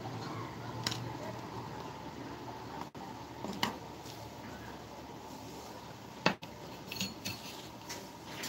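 Steady low hum with a few sharp clicks and light metallic taps: small tools and jumper wires being handled on a Bluetooth radio's circuit board during a charging-circuit repair.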